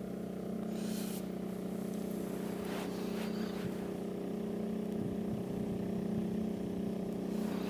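Small boat's outboard motor running steadily at low trolling speed, a constant droning hum that grows slightly louder as the boat comes closer.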